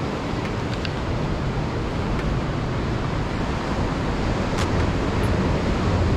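Steady rush of sea surf washing against a rocky shore, with wind rumbling on the microphone.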